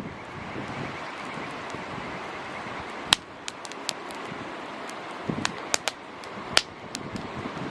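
Wood campfire crackling in strong wind: sharp pops of burning wood, the loudest about three seconds in and several close together later on, over a steady rush of wind.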